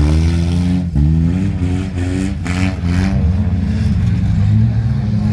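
Demolition-derby car engines revving hard as the cars shove into each other, their pitch climbing and dropping again and again, with a short harsh burst about two and a half seconds in.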